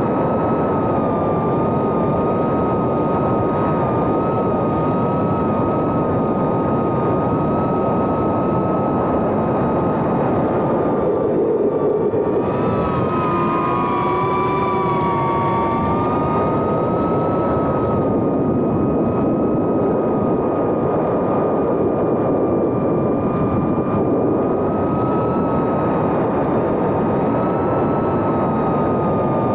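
The brushless motors and propellers of a 2.5-inch FPV whoop drone, Happymodel 1404 3500kv motors, whining steadily in flight over a rushing noise, recorded on board. About halfway through, the motor pitches waver and split apart as the throttle changes, then settle again.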